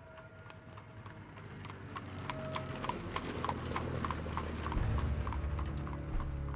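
Hooves clip-clopping at a steady walk, about four steps a second, over a low drone that swells and grows louder.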